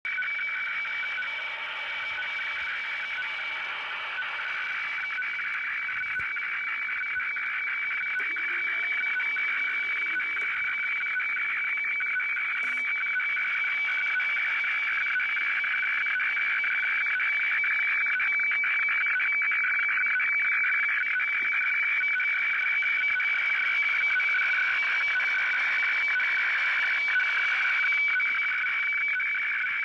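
Shortwave radiofax signal from Kyodo News, heard through the Sony CRF-V21 receiver's speaker. It is a steady pair of tones, one lower and one higher, with a rasping warble between them under static hiss: the sound of a fax picture line by line as the receiver decodes and prints it.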